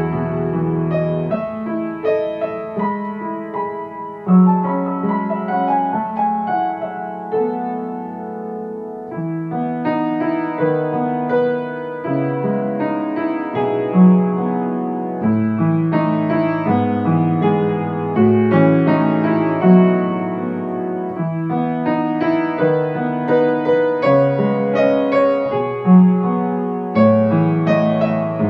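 Piano music: a calm piece of chords and single notes that ring and fade, with a few louder accents along the way.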